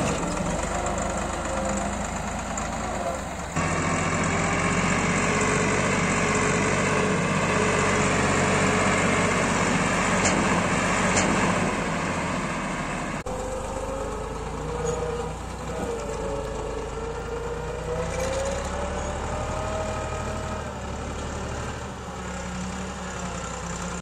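Farm tractor's diesel engine running steadily while towing a trailer loaded with a combine harvester, its pitch wavering slightly; the sound changes abruptly twice.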